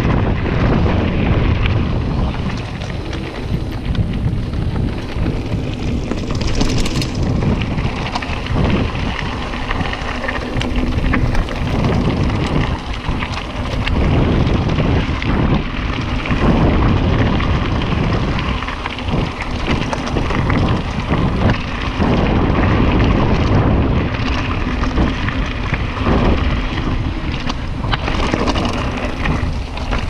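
Mountain bike descending a dirt singletrack fast: tyres rumbling on the dirt and the bike rattling and knocking over bumps, under heavy wind noise on the microphone.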